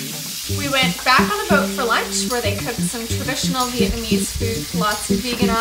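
Food sizzling and being stirred in a hot pan, with rhythmic instrumental music playing underneath.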